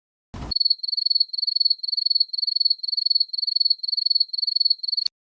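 Crickets sound effect, the kind used to mark an awkward silence: a high, even chirp repeating about two and a half times a second. A brief burst of noise comes just before it, and it cuts off abruptly with a click near the end.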